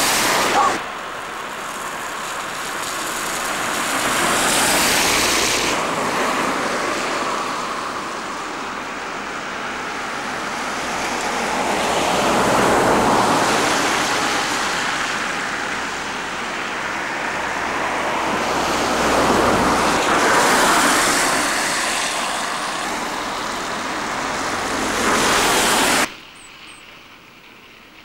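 Cars passing on a slushy, wet road: tyre hiss swelling and fading several times. Near the end the sound drops suddenly to a faint hiss.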